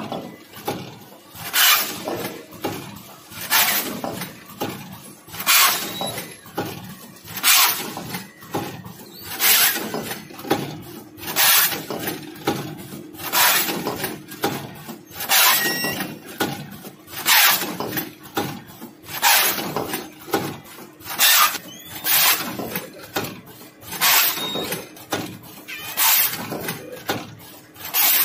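Rotary premade-pouch filling and sealing machine running through its cycle, with a loud hissing burst about every two seconds and lighter clicks and clatter in between, over a faint steady hum.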